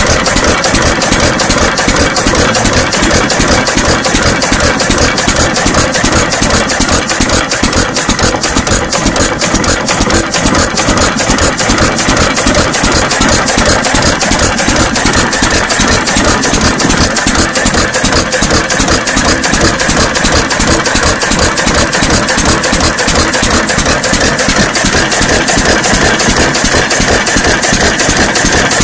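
John Deere 1 1/2 hp Type E single-cylinder hit-and-miss engine, on battery and low-tension coil ignition, running steadily with an even run of exhaust beats, firing on almost every cycle.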